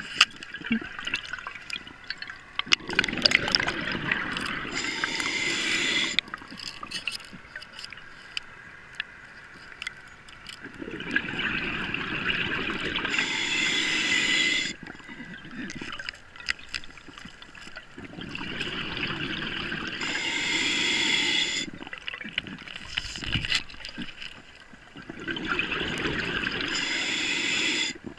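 Scuba diver breathing through a regulator underwater. Four long hissing, bubbling breaths come in an even rhythm about seven seconds apart, with quieter stretches between them.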